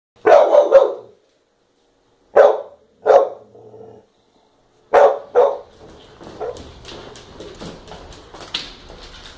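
A pit bull–shar pei mix dog barking, seven loud barks in three quick groups. Quieter scuffling and small clicks follow in the second half.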